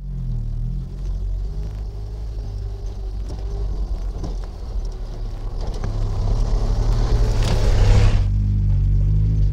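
Tata Nano's small two-cylinder engine pulling the car up a dirt track, its low rumble growing louder as it approaches. About seven and a half seconds in, a short rush of tyre noise on the dirt as it passes close by.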